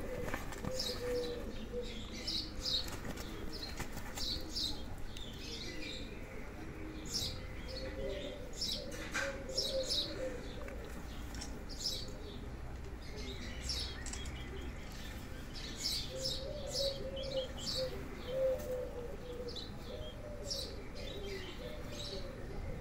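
Birds: many quick, high chirps from small birds, over a low, wavering cooing that comes in phrases of a second or two.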